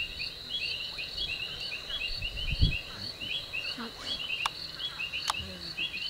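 Night chorus of insects and frogs: a rapid, evenly repeated high chirping over a steady high whine. Underneath, low rumbling noises, a loud low thump about two and a half seconds in, and two sharp clicks near the end.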